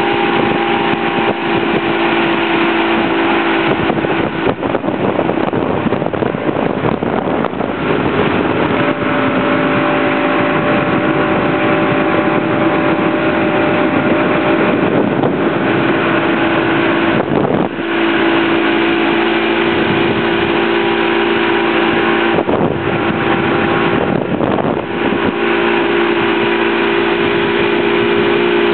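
Motorboat engine running steadily at speed while towing a water skier, with a steady rush of wind and water noise; the sound dips briefly a few times.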